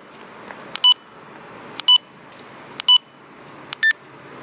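AVALID kids' walkie-talkie beeping at each button press while cycling through its menu settings: four short beeps about a second apart, the last one higher-pitched.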